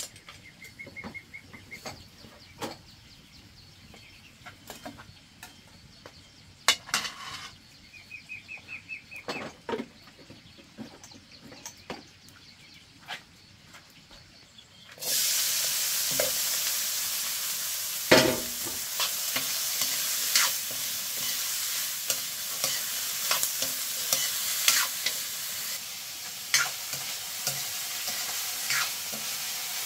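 Kitchen handling with scattered clicks and knocks, then about halfway through food goes into hot oil and starts sizzling loudly and steadily. Stirring knocks and clatter of a utensil in the pan sound over the sizzle.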